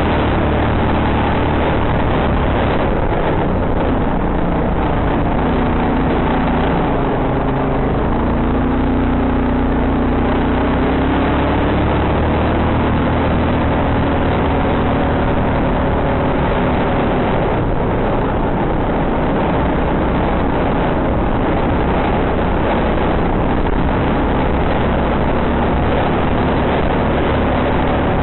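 Quad bike (ATV) engine running steadily under way, its note rising and shifting about a third of the way through.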